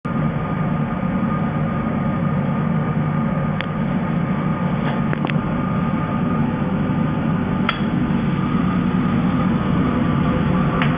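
Home-built CNC airbrush spraying machine running: a steady mechanical hum with a few faint tones above it, and five sharp clicks spread through it.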